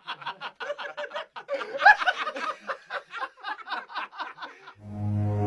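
A long run of quick laugh-like vocal pulses, about six a second, snickering and chuckling without words. Near the end, low sustained dark music comes in.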